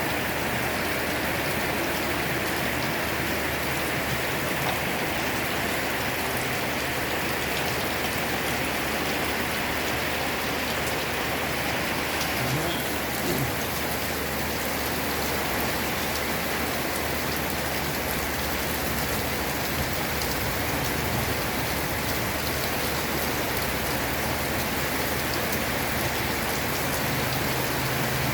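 Heavy rain falling steadily, an even hiss of drops hitting surfaces, with a few faint knocks about halfway through.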